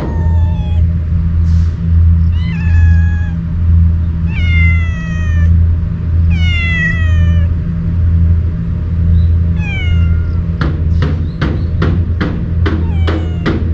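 A wary stray cat meowing about five times, roughly one call every two seconds, each call sliding down in pitch. Under it runs background music with a low pulsing beat, and quick drum-like hits come in near the end.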